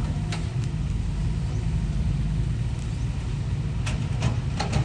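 Heavy machine engine running steadily with a low rumble. A few short, sharp sounds come near the end.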